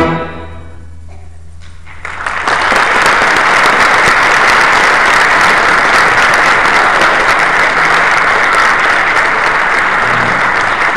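A high school orchestra's final chord dies away with a low held note, then about two seconds in the audience bursts into applause that goes on steadily.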